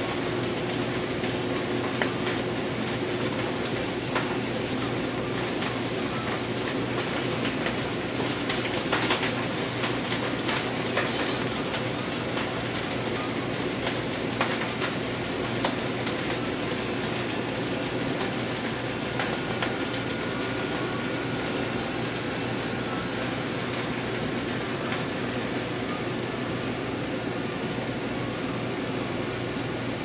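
Freshly microwaved bacon sizzling and crackling on the conveyor of a 915 MHz industrial microwave oven, with a few sharp pops, over the steady hum of the running conveyor line.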